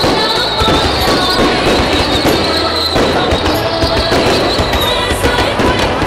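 Aerial fireworks display: a dense, unbroken barrage of bangs and crackling.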